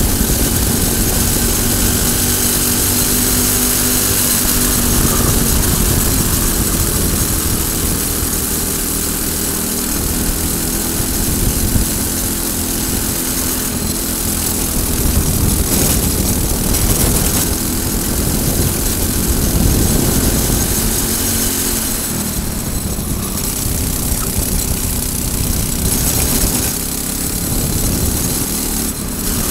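Briggs & Stratton four-stroke single-cylinder kart engine running hard at racing revs, heard onboard with rushing wind over the microphone. The engine pitch eases lower near the end as the revs drop.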